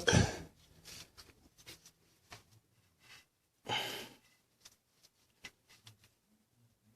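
Scattered faint clicks and taps of hands and tools handling parts on an engine, with one short breathy rush about four seconds in.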